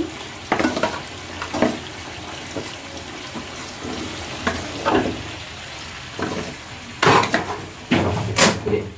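Rice sizzling as it fries in oil in a large metal pot, the stage before water goes in for biryani. A spoon scrapes and knocks against the pot at irregular strokes about once a second, the loudest strokes near the end.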